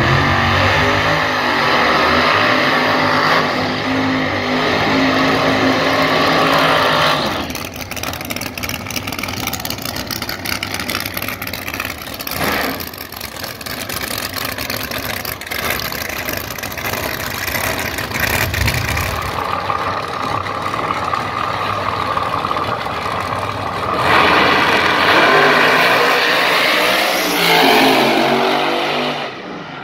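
Supercharged and nitrous drag race cars' engines. They run loud for the first several seconds, then drop to a lower, steady running at the starting line. About 24 s in comes a loud full-throttle launch, the engine sound rising and surging as the cars run down the track.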